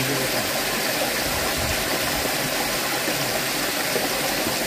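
Steady rushing of a small river running over rocks.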